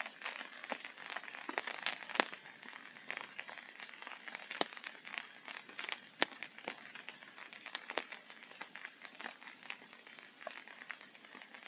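Raindrops pattering on a tent's fabric, heard from inside: a steady light hiss with many irregular sharp taps of individual drops, a few louder than the rest.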